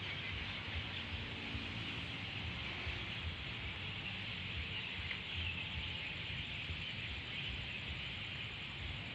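A steady chorus of night insects, an even high chirring that runs without a break, over a low rumble.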